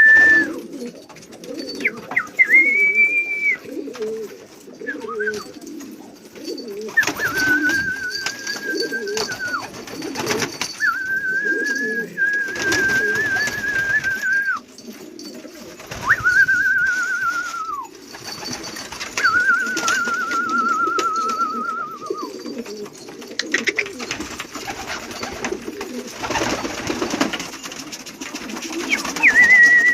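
Domestic pigeons cooing, a low continuous coo throughout. Over it come about six long, steady high whistles, each one to three seconds long.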